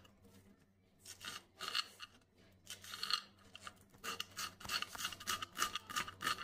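Kitchen knife chopping green chillies on a wooden cutting board: a few separate groups of cuts, then rapid steady chopping from about four seconds in.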